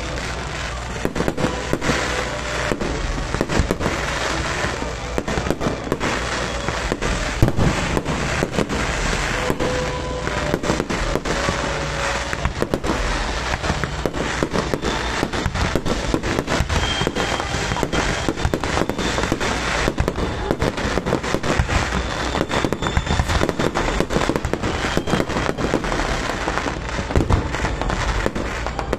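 Fireworks display: a dense, unbroken barrage of shells bursting, with sharp bangs and crackle several times a second.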